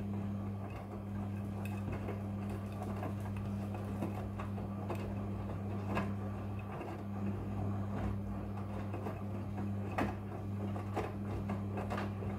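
Midea front-loading washing machine running a wash cycle: a steady motor hum with irregular light clicks and knocks from the tumbling load.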